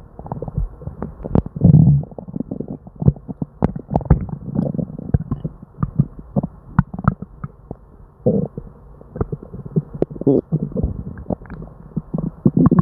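An upset stomach gurgling and rumbling non-stop, with many quick irregular pops between louder gurgles about two seconds in and again near eight and ten seconds. These are the overactive bowel sounds of a stomach upset with diarrhea.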